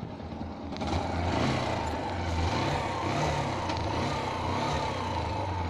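Yamaha YBR125's single-cylinder four-stroke engine running at a standstill, its low note rising and falling gently as the throttle is worked, under a steady road hiss.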